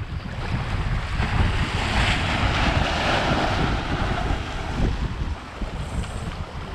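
Sea water surging and washing over breakwater rocks, a rush that swells and fades over a few seconds, with wind rumbling on the microphone.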